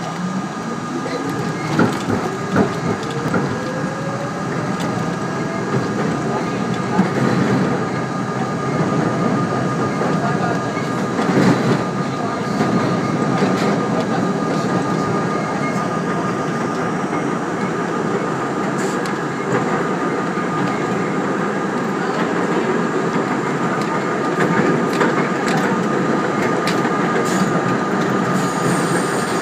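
R32 subway car running on elevated track, heard from inside the front car. Its motor whine rises steadily in pitch over the first six seconds or so as the train gathers speed, then settles into a steady running rumble with wheels knocking over rail joints.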